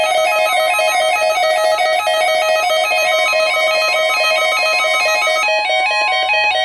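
Several weather alert radios sounding their alarms in fast alternating two-pitch beeps, over the steady NOAA Weather Radio 1050 Hz warning tone being tested. About five and a half seconds in, one of the beeping alarms stops while another keeps going.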